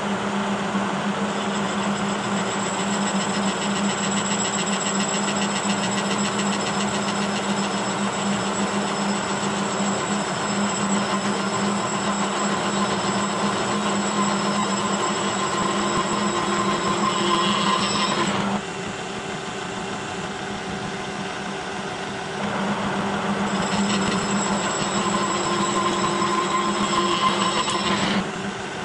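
Horizontal milling machine running, its side-milling cutter cutting a spline groove along a Delrin shaft: a steady mechanical hum with a high whine. The sound drops sharply about two-thirds of the way through, picks up again a few seconds later, and drops again near the end.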